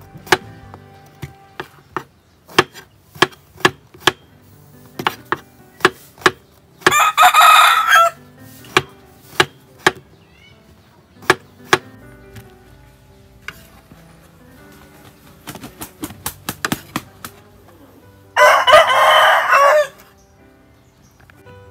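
Knife chopping eggplant on a wooden cutting board, a run of sharp knocks. A rooster crows loudly twice, about seven seconds in and again near the end.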